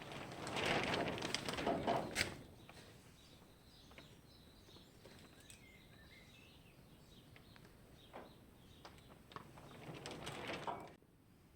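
Two spells of rustling handling noise with a few sharp clicks, and faint bird chirps between them. The sound cuts off suddenly near the end.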